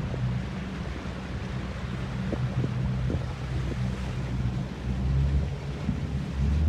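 Boat motor running steadily as the boat pushes along a trail through floating swamp vegetation, with a few light knocks in the first half; the motor gets louder near the end.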